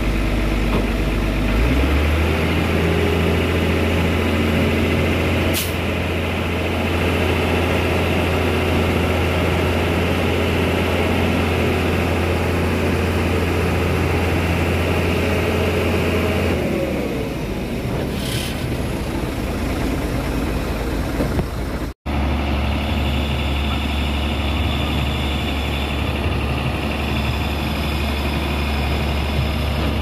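Heavy diesel truck engines of a concrete mixer truck and a boom concrete pump truck running steadily. The engine note rises about two seconds in, holds, and drops back after about sixteen seconds, with two short hisses.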